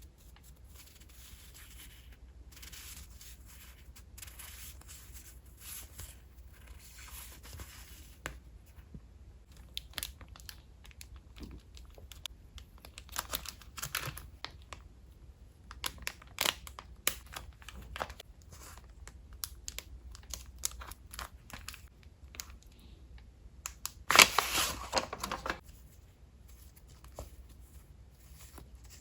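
Packaging being handled and unwrapped by hand: soft rustling, then scattered crinkles and clicks, and a loud tear lasting about a second and a half near the end.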